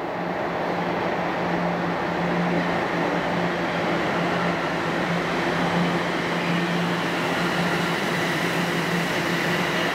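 A TTC Toronto Rocket subway train approaching through the tunnel and pulling into the station, a steady rumble with a low hum under it.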